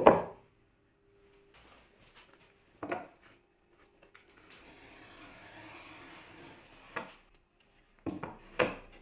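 Wood and tools handled on a workbench. A board is set down with a loud knock, followed by a single knock a few seconds later. A pencil then scratches a line along a square for a couple of seconds. Near the end, the bolted wooden jig is set down with two knocks.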